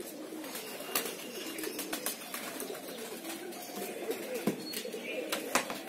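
Domestic pigeons cooing continually in a loft, the calls overlapping, with a few sharp knocks, the loudest about a second in and near the end.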